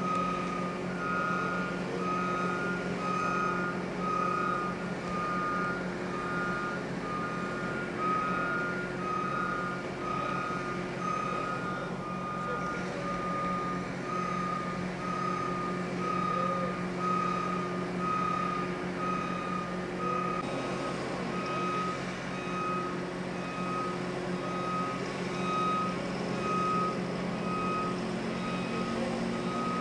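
Backup alarms on heavy vehicles beeping over and over. For about the first twelve seconds a second alarm at a slightly higher pitch overlaps the first. A steady engine drone runs underneath.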